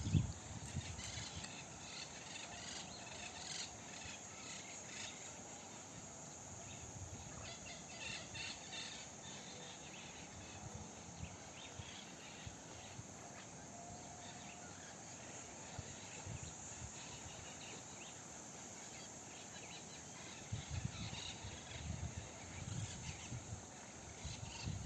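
Birds chirping and calling in short scattered notes over a steady background of insects. Low rumbling comes in near the end.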